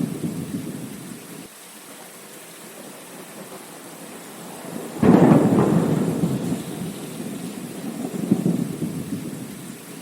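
Thunderstorm: steady rain with rolling thunder. A rumble fades out over the first second or so, then a sudden loud crack of thunder about halfway through rolls on, swelling again near the end before dying away.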